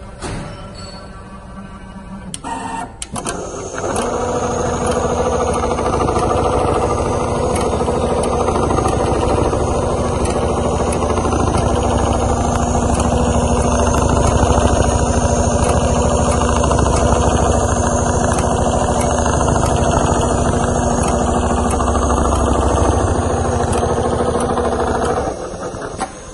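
Richpeace CNC quilting sewing machine stitching through leather. After a few clicks, the sewing head starts about four seconds in and runs with a fast, even needle rhythm over a steady hum, then stops about a second before the end.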